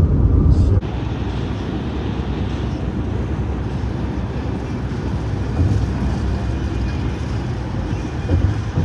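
Steady low rumble of a vehicle driving: engine and road noise. A louder rumble in the first second cuts off abruptly.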